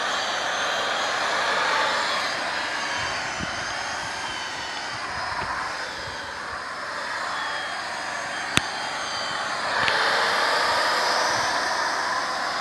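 Motorized sprayer running steadily, hissing and whining as it pushes liquid through a hose to the base of a date palm trunk. A single sharp click comes a little past halfway, and the sound grows louder about ten seconds in.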